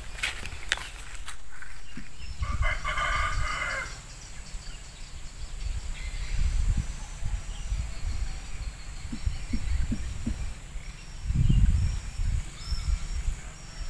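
A rooster crows once, about two and a half seconds in, lasting a second and a half. Low rumbling thumps come and go around it, loudest late on.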